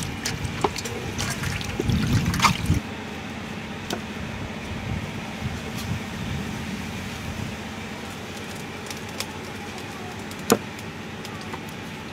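Hands rubbing and splashing raw beef in a metal basin of water for the first few seconds. Then a knife slicing through the beef on a round chopping block, with scattered sharp taps of the blade on the block, the loudest about ten and a half seconds in.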